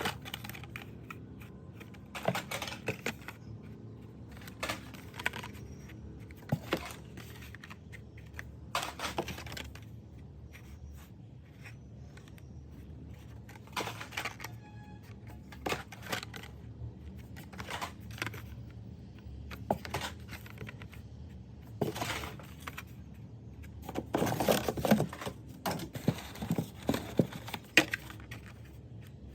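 Hands handling carded Hot Wheels die-cast cars in plastic blister packs: scattered clicks, taps and crinkling, busiest near the end.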